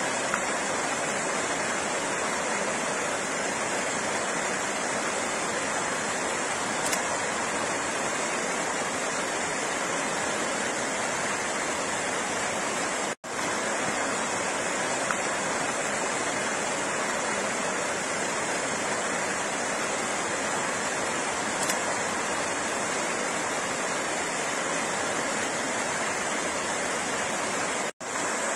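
Steady rush of flowing water, a stream or small cascade. It cuts out for an instant about halfway through and again near the end, where a short recording loops and restarts.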